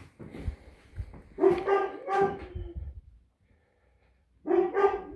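A dog barking in two bursts of about three barks each, the first about a second and a half in and the second near the end, with a few low thumps before the first burst.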